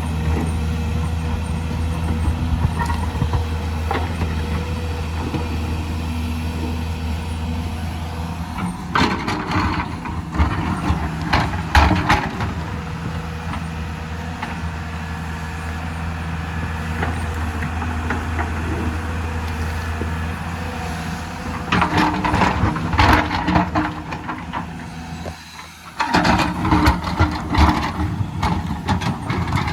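Diesel excavator engine running steadily under load, with three spells of loud clattering: one about a third of the way in and two near the end.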